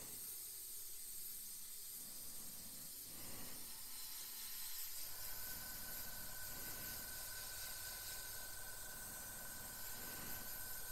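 Gaahleri Mobius airbrush spraying thinned paint at slightly raised pressure: a steady hiss of air and atomised paint. A faint steady whine joins in about halfway through.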